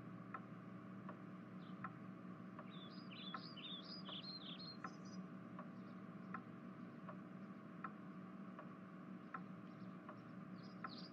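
Faint background ambience: birds chirping in two short spells over a low steady hum, with a soft tick about every three-quarters of a second.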